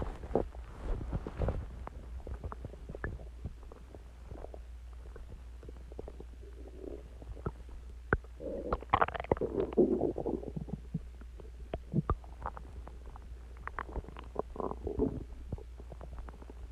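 A human stomach growling and gurgling an hour after a meal of eggs, ice cream and Coke, recorded close up. Scattered small pops and clicks are heard, with a longer bubbling gurgle about halfway through and a shorter one near the end.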